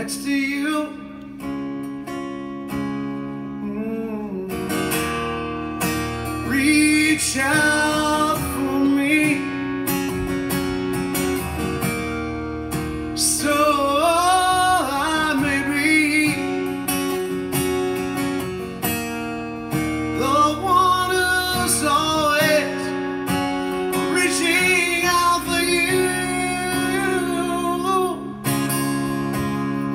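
Strummed acoustic guitar with a man singing over it, live. The guitar plays alone at first and the voice comes in about four seconds in, singing long, held notes.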